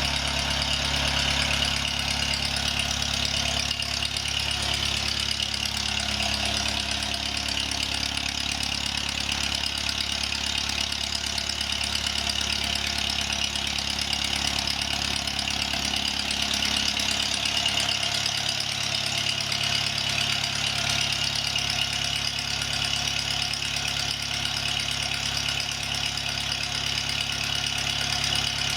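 Antique Kohler light plant generator engine running steadily under a 1500-watt load, with its Wico magneto newly repaired. It runs smoothly, with no stutter or misfire.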